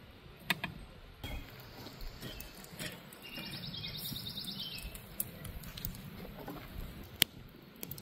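Scattered sharp clicks and knocks, with a short, fast bird trill about three and a half seconds in.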